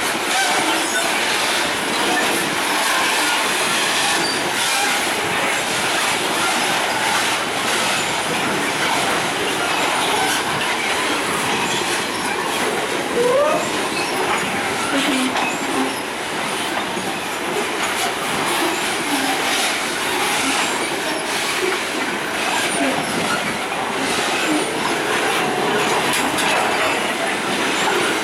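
Covered hopper wagons of a freight train rolling past, their steel wheels clattering steadily over the rail joints with metallic wheel squeal. A short rising squeal comes about halfway through.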